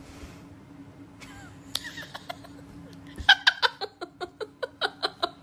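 A person laughing in quick short bursts, about four a second, starting about three seconds in.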